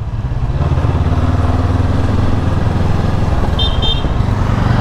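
Honda CB500X parallel-twin motorcycle engine running steadily while riding, with wind rush on the microphone. The engine note changes about three seconds in, and two short high beeps sound shortly before the end.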